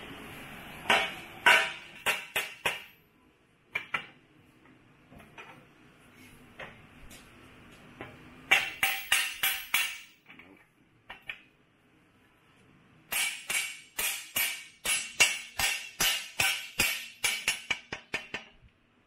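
A mallet striking the steel plates of a tubing bender frame, knocking the tab-and-slot parts into line. The blows come in three bursts of quick strikes, about three a second, each with a bright metallic clink. A steady hiss fades out in the first few seconds.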